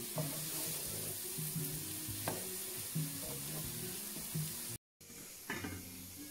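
Chopped leeks sizzling in butter in a frying pan, stirred by a wooden spatula with a few sharp scrapes and taps. Background music plays underneath. The sound cuts out briefly near five seconds in, and after that the sizzle is fainter.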